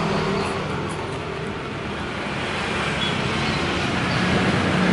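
Street traffic: a motor vehicle's engine running close by over road noise, growing louder near the end as it comes nearer.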